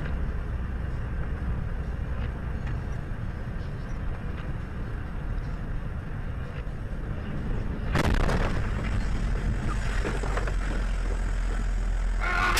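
Vehicle on the road: a steady low rumble of engine and tyres, joined about eight seconds in by a sudden, louder hissing noise.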